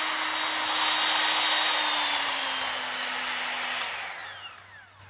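Electric hand mixer beating egg whites and sugar into a meringue, its motor running steadily with a slight drop in pitch partway through. It is switched off about four seconds in, and the whine falls away as the motor spins down.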